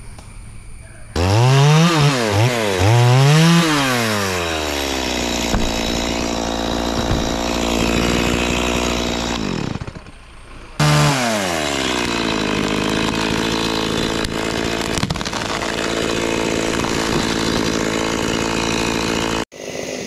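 Two-stroke chainsaw revved up and down twice, then running at a steady speed; it dies away about halfway through, then comes back at high speed and settles into a steady run.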